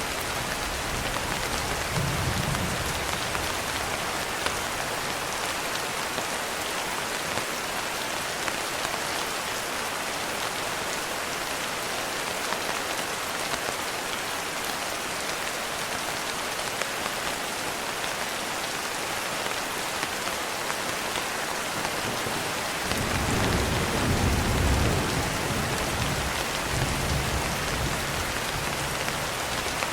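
Steady rain, an even hiss with scattered drop ticks. A low rumble of distant thunder swells about three-quarters of the way through and fades near the end, with a shorter one near the start.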